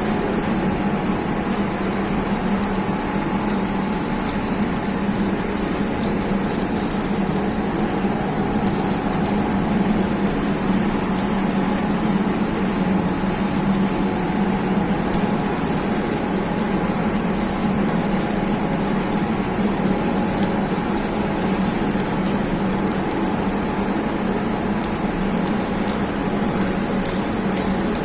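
Arc welding on steel pipe: a steady crackling arc over the constant hum of the welding machine, with no break.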